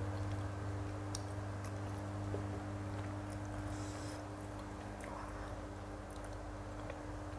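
A person chewing soft rolled egg (telur gulung) close to the microphone, with small faint mouth clicks, over a steady low hum.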